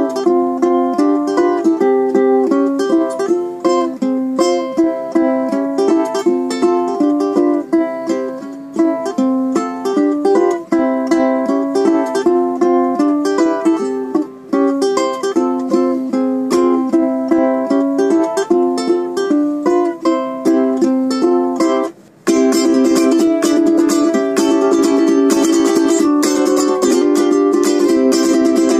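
Homemade steampunk ukulele played solo, picking out a melody note by note. After a short break about 22 seconds in, the playing turns to a denser, continuous run of notes.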